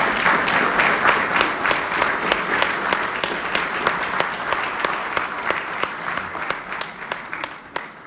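Audience applauding with many hands clapping at once, the applause thinning and fading toward the end.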